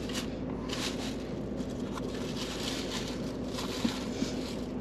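Quiet eating sounds: faint scraping, rustling and crackling of a fork and takeout container, over a steady low hum.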